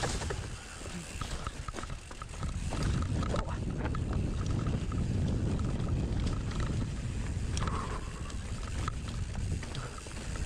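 Mountain bike rolling over rough trail: wind noise on the microphone with scattered clicks and knocks from the bike rattling.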